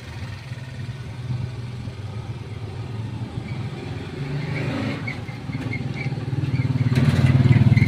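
Diesel engine of a 2020 Mitsubishi Strada pickup running with a steady low hum that grows louder over the last few seconds.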